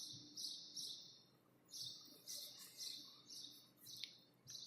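A small bird chirping faintly: about ten short, high chirps in quick runs, with a brief pause about a second in.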